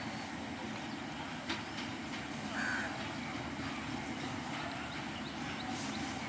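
Indian-built WDM-3A diesel-electric locomotive running steadily at low speed as it draws a passenger train into a station, with a few light clicks from the wheels on the rails.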